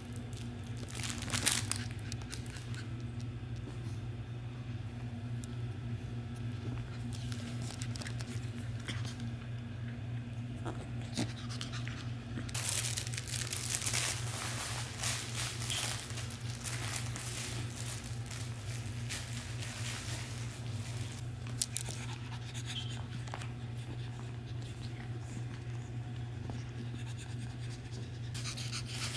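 Shih Tzu puppies playing: scuffling and rustling on a shaggy rug with scattered small knocks, the sharpest one near the start. A steady low hum runs underneath.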